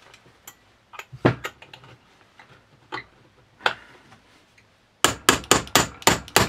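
Long screwdriver working inside a Lee-Enfield SMLE's wooden butt stock to unscrew the stock bolt. A few scattered metal knocks and clicks, then from about five seconds in a quick, regular run of sharp clicks, about four a second.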